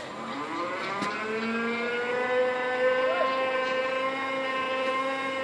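A steady mechanical whine that rises in pitch over the first two seconds or so and then holds level, like a machine gaining speed and settling.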